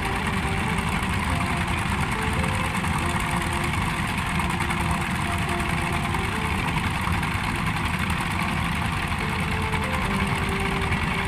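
Small boat engine running steadily at idle, an even, unbroken rumble.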